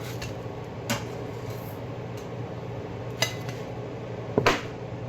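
Dishes and utensils clinking as food is handled and plated: three short knocks, the second ringing briefly and the last, a double knock about four and a half seconds in, the loudest, over a steady low hum.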